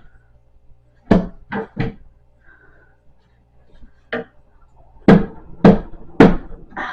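Hard knocks on a wooden printer stand, seven in all: three close together about a second in, a single one past the four-second mark, then three heavier blows a little over half a second apart near the end.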